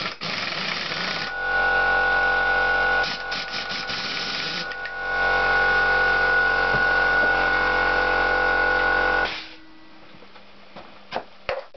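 Pneumatic impact wrench running on a flywheel puller bolt to pull the flywheel off a Honda GL650 engine. It runs loud and steady, dips briefly, and cuts off suddenly about nine seconds in, followed by a few light clicks.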